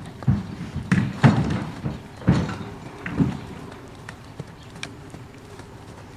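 Hooves of a trotting horse thudding on sand arena footing, a run of irregular dull strikes that are loudest in the first half and fainter after about three seconds.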